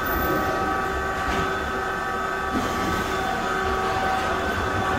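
Glasgow Subway train standing at the platform, its electrical equipment giving off a steady whine of several tones over a low rumble, with a couple of faint clicks.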